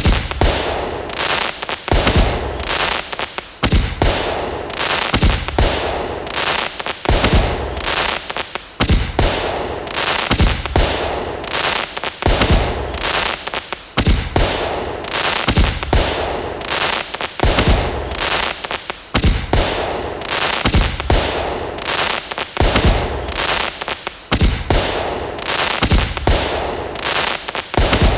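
Looped fireworks sound effect: bangs with crackling hiss between them, a pattern that repeats about every second and three-quarters, with a short falling whistle high up before some of the bangs.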